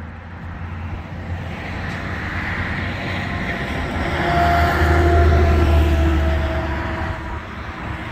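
A road vehicle passing close by: a low engine rumble and tyre noise that build, peak about five seconds in, then fade.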